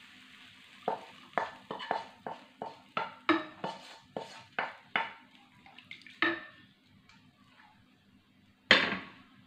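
Wooden spatula knocking and scraping against a non-stick frying pan as the fried mixture is pushed out into a rice cooker pot: a run of sharp taps about two a second for about five seconds. Near the end, one louder clunk as the pan is set back down on the stove.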